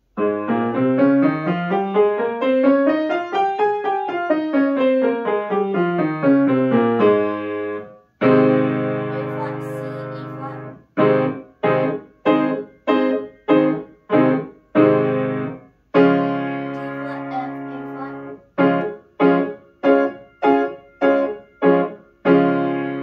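Piano playing an A-flat major scale with both hands an octave apart, running up for about four seconds and back down. It is followed by held chords and strings of short, separate chords.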